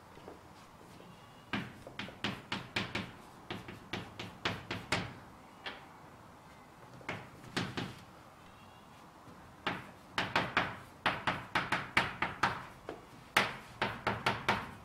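Chalk writing on a blackboard: quick clusters of sharp taps and short scratches as each stroke is made, with brief pauses between groups and a dense run of taps in the last few seconds.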